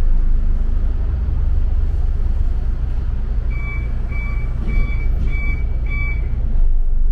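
Double-decker bus running, a steady low engine and road rumble inside the cabin. About halfway through come five short high beeps, roughly two a second.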